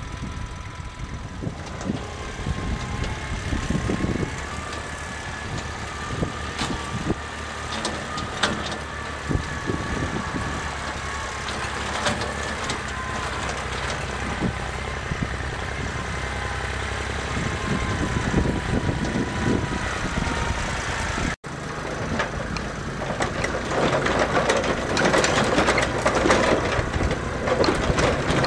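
Small Siromer (Jinma-built) diesel tractor engine running steadily, with a faint whine over its hum. After a brief dropout about three quarters through, a louder rattling clatter joins the engine as it tows the loaded trailer.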